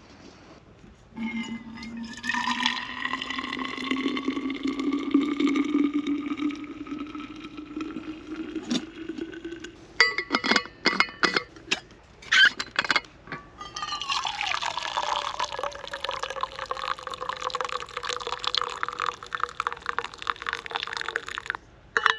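Liquid being poured into a vessel, the ringing pitch rising as it fills, then a handful of sharp clicks and knocks from the steel thermos flask and its lid. After that comes a longer pour whose pitch falls and then levels off.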